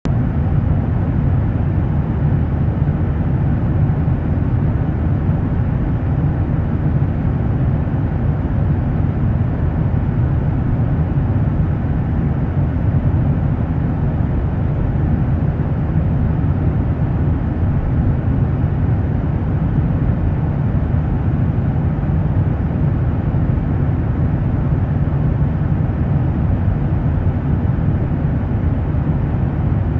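Jet aircraft noise: a steady low rumble that neither rises nor falls.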